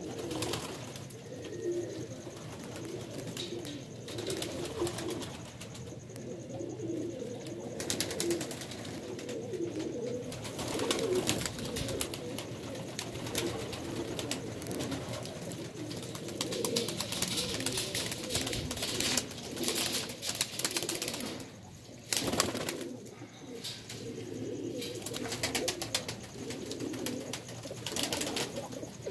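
Several domestic pigeons of the Madrasi breed cooing continuously in low warbling phrases, overlapping one another. Bursts of clicking and rustling come and go over the cooing, thickest in the second half, with one sharp click a little past the middle.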